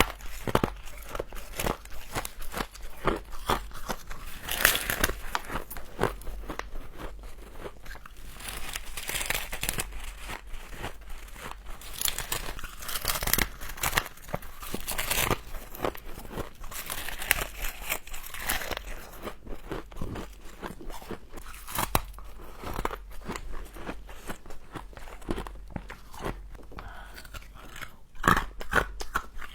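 Close-miked crunching and chewing of frost, bitten and chewed in quick irregular crackles.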